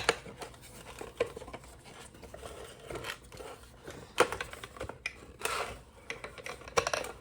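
Small plastic parts of a car side-mirror assembly being handled and pressed together by hand: scattered light clicks, scrapes and rustling, with a few sharper clicks about four, five and a half and seven seconds in.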